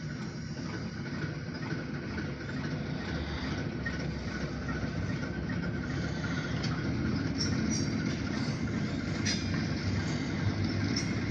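Alco diesel locomotive running with a steady low rumble that slowly grows louder, with a few sharp clicks in the second half.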